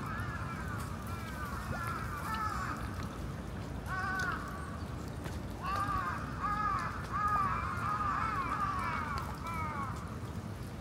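Crows cawing repeatedly: a run of arched caws, a short burst about four seconds in, then a longer run of overlapping caws, over a steady low background noise.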